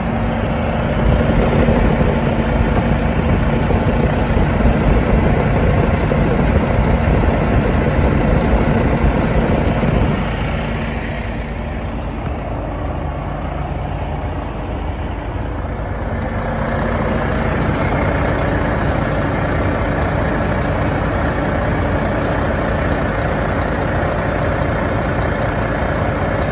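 2014 International ProStar truck tractor's diesel engine idling steadily, heard close at the open engine bay. It drops in level about ten seconds in for several seconds, then comes back up.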